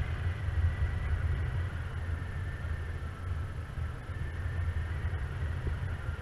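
Wind rushing over the microphone in paraglider flight: a steady low buffeting rumble that rises and falls in gusts, with faint thin high tones held underneath.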